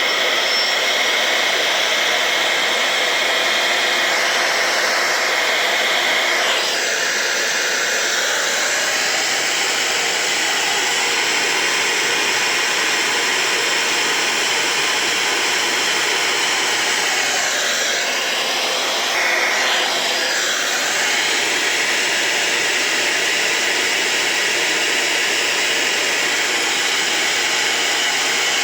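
Brushless DC (BLDC) air-blower motor running on its repaired driver board, giving a steady rush of air with a whine. Its pitch shifts briefly about six or seven seconds in and again around eighteen to twenty seconds in.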